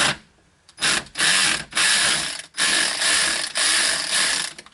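Ratchet wrench with a 10 mm socket clicking in about five quick runs, each under a second, as it backs off the nut on a 12-volt battery cable terminal.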